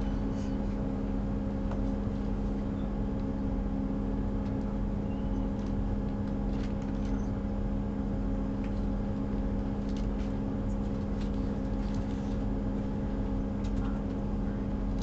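Class 158 diesel multiple unit's underfloor diesel engine idling while the train stands at a platform, heard from inside the carriage: a steady low hum with a fixed drone, and a few faint clicks.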